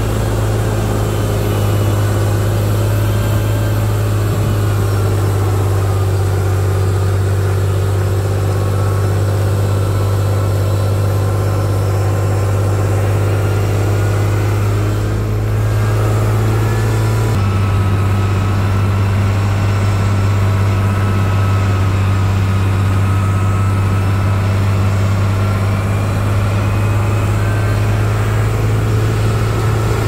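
Heavy earthmoving machine's diesel engine running steadily, its pitch drifting slowly up and down, with a change in its low tone a little over halfway through.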